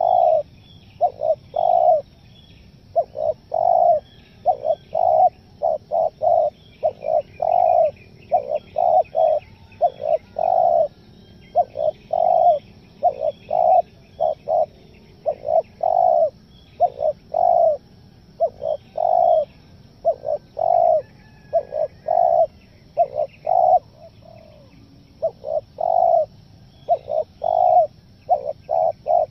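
Spotted dove cooing over and over: short coo notes, about two a second, in runs broken by brief pauses, with some notes held longer and stuttering bursts in between, the call used to lure wild spotted doves. Small birds chirp faintly behind it.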